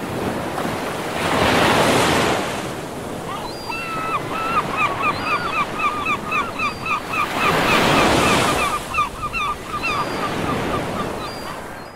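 Sea waves washing onto the shore, swelling twice, about two and eight seconds in. Through the middle a bird calls in a quick run of short, repeated notes.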